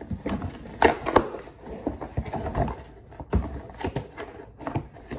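Cardboard shipping box being handled and turned over: irregular knocks and rustles of the cardboard, with two sharp knocks about a second in.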